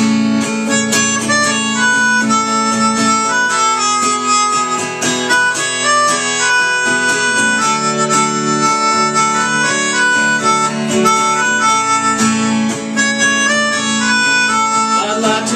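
Melodica, blown through a mouthpiece tube, plays the lead melody of an instrumental break in held and stepping notes. Behind it an acoustic guitar strums a steady country-folk rhythm.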